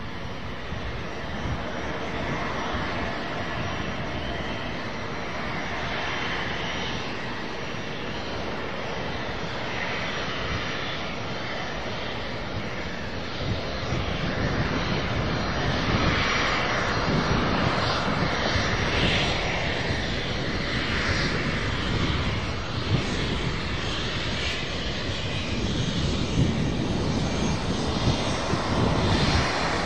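Business jet's turbofan engines running with a steady jet noise, growing louder about halfway through.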